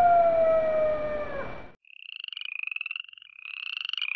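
Night-themed intro sound effects: a long howl, slowly falling in pitch, fades out about a second and a half in. High, fast-pulsed trilling calls follow in short bursts.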